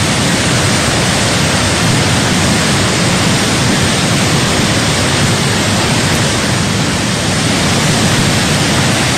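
Steady, loud rush of a muddy flash flood, a landslide-driven torrent of water and debris pouring down a hillside.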